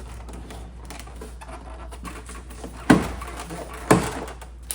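Hands working on a car's interior door trim: faint clicks and rustling of plastic parts, then two sharp knocks about a second apart near the end.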